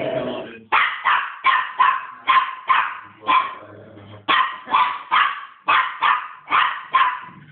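A cairn terrier–poodle cross barking over and over in short, sharp barks, about two a second, with a brief pause around four seconds in.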